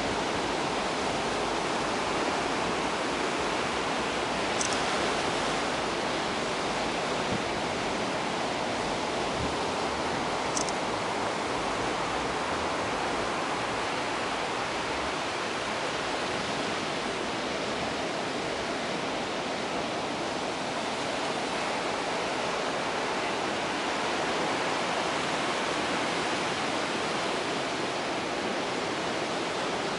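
Ocean surf washing onto the shore, a steady rushing with no single wave crash standing out. Two brief high-pitched ticks about 5 and 10 seconds in.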